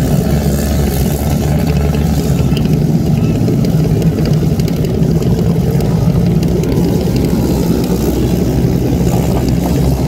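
Several racing jet skis' engines running together in a steady, loud drone, their jet pumps churning water.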